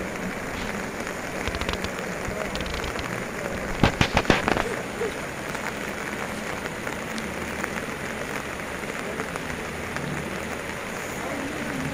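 Steady hiss of heavy rain over a swollen, fast-flowing river in flood. About four seconds in, a quick run of four or five sharp knocks.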